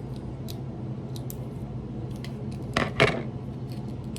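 Small plastic toy packaging being handled and pulled at, with scattered faint crinkles and clicks and two louder crackles about three seconds in.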